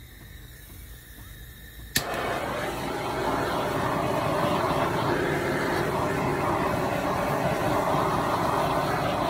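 Handheld torch clicking alight about two seconds in, then its flame hissing steadily.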